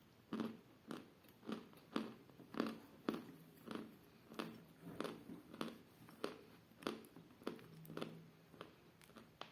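A person chewing pieces of eating chalk close to the microphone: short, muffled crunches in a steady rhythm of a little under two bites a second.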